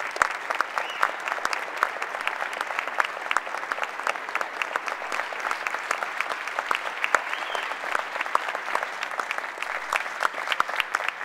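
Audience applauding: a steady, dense clatter of hand claps, with a few louder individual claps standing out.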